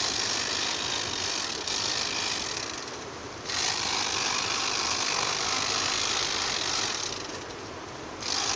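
Battery-powered Bosch tea harvesting machine running and shearing tea shoots, a steady high buzzing hiss. It drops in level for a moment about three seconds in and again near the end.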